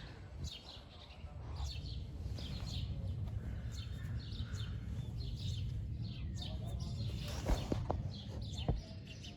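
Small birds chirping repeatedly in quick short notes over a steady low outdoor rumble, with a couple of sharp knocks near the end.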